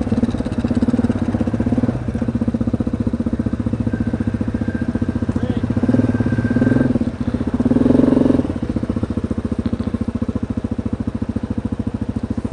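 Yamaha 700 ATV's single-cylinder engine running at low speed and idle as the quad creeps along, its steady firing pulses swelling briefly twice past the middle with a touch of throttle.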